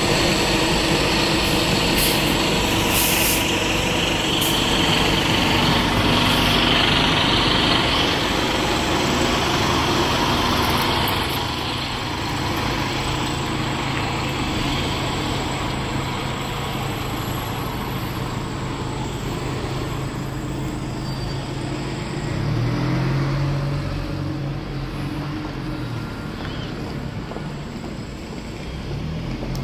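A bus running, with sharp hisses of its air brakes a few seconds in and a steady engine hum that rises briefly about three-quarters of the way through.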